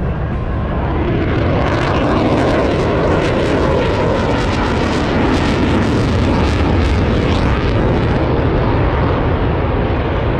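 Jet noise of a Navy F-35C Lightning II's Pratt & Whitney F135 afterburning turbofan as the fighter makes a pass over the beach. The sound builds over the first couple of seconds, is loudest and crackling from about two to eight seconds in, then eases as the jet moves away.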